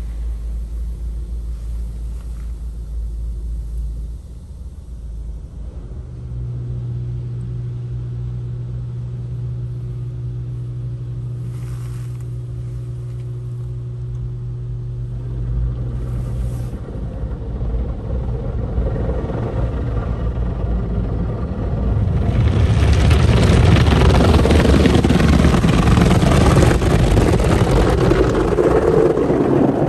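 PDQ Tandem Surfline touchless in-bay car wash heard from inside the car: a steady low machine hum, then from about two-thirds through a loud rush of high-pressure water spray hitting the car's glass and body.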